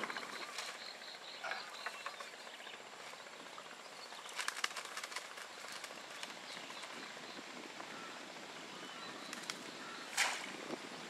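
Quiet outdoor ambience by the water, with a few faint clicks and rustles and one short, louder noise about ten seconds in.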